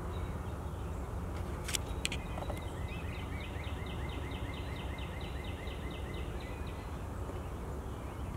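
A steady low outdoor rumble, over which a songbird calls a long run of evenly repeated high, slurred notes, about four a second, for several seconds. Two sharp clicks come just before the run starts.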